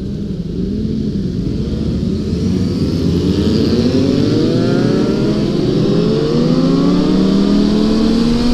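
Sport motorcycle engines pulling away from a stop, the engine note climbing steadily in pitch over several seconds under acceleration.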